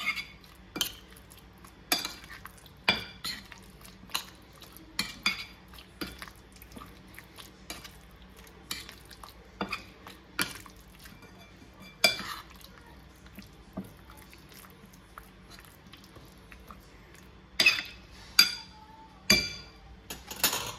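Metal spoon clicking and scraping against a ceramic plate while mixing chicken pieces in a yogurt-and-spice marinade, a click about once a second, with a few louder ringing clinks near the end.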